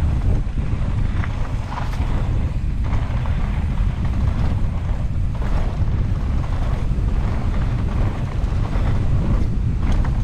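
Wind buffeting the microphone of a camera riding on a mountain bike at speed during an enduro descent, a constant low rumble, with scattered knocks and rattles from the bike over rough trail.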